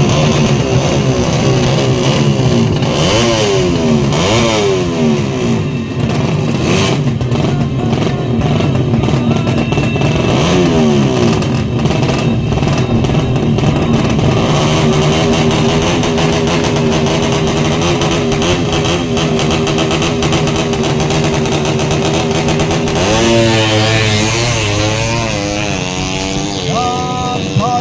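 200cc horizontal-cylinder ('sleep engine') drag bike engine revved in blips at standstill. It rises and falls twice, runs steadily for a while, then gets a quick series of sharp revs near the end.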